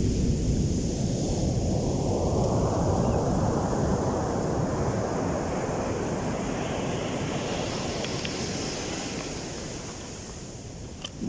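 Heavy surf: a wave breaks and its wash hisses up the beach, swelling about two seconds in and fading away near the end, with wind rumbling on the microphone at the start.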